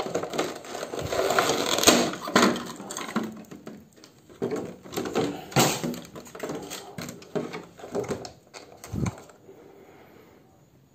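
A clear hard-plastic packaging box being pried open and handled, with rapid clicks, crackles and rustling as the lid comes off and a cardboard insert and cables are pulled out. The handling stops about nine seconds in.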